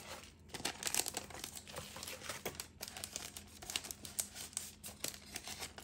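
Crinkling and rustling of sticker sheets and their packaging being handled, with irregular small crackles throughout.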